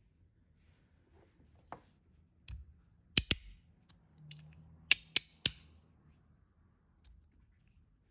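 Copper Magnus Robo fidget slider with strong magnets and zirconium plates being slid back and forth, its plates snapping into place with sharp clicks. The loudest clicks come as a quick pair about three seconds in and three in a row about five seconds in, with fainter clicks between.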